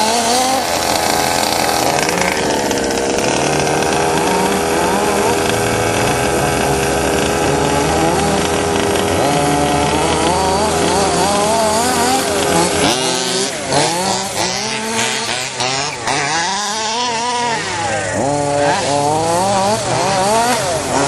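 Small two-stroke petrol engines of several 1/5-scale off-road RC buggies racing, their pitch rising and falling over and over as the throttle opens and closes. From about two-thirds of the way in the revving comes in quicker, steeper swoops.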